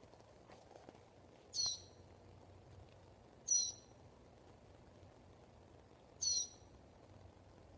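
A bird calling over and over: three identical short, high calls, two to three seconds apart.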